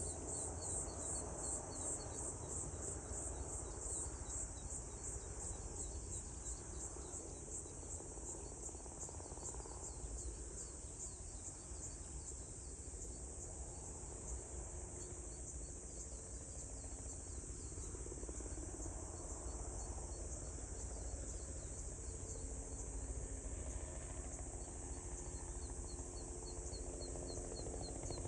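Insects singing in a steady high pulsing chorus, about three pulses a second, with a second quicker chirping beneath it, over a low rumble that swells and fades.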